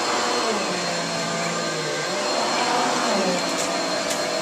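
Vacuum cleaner running steadily, its motor pitch wavering up and down as it works over the couch.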